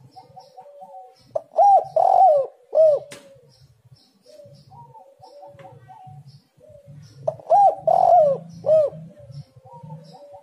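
Spotted dove cooing: two loud phrases of arched coo notes about six seconds apart, with softer quavering coos between them.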